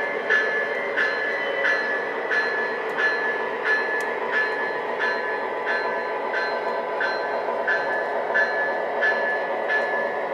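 O-gauge model train rolling along three-rail track, heard from aboard: a steady rolling rumble and a high whine, with an even click about one and a half times a second.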